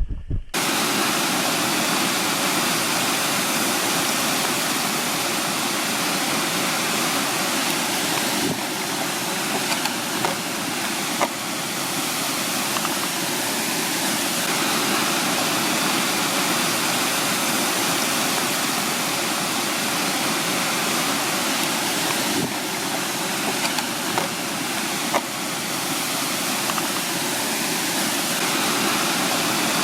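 Water of a rocky mountain stream rushing and falling, a loud, steady rush with a few faint brief clicks.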